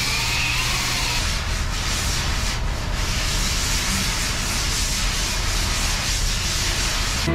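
Electric sander-polisher with a foam pad running over a surfboard, a steady whirring rasp of the pad rubbing the board's surface.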